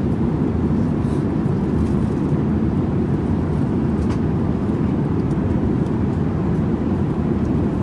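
Steady low rumble of an airliner cabin in flight: engine and airflow noise, even throughout.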